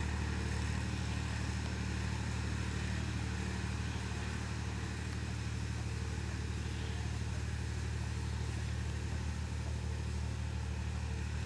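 Massey Ferguson 231 tractor engine running steadily as it pulls a five-wheel hay rake through cut hay.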